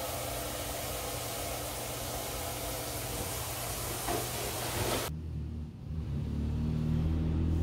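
Water running from a tap during dishwashing, a steady hiss that cuts off suddenly about five seconds in, followed by a low hum.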